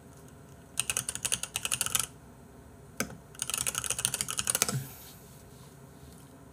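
Typing on a computer keyboard: two quick runs of keystrokes, each a little over a second long, with a single click between them.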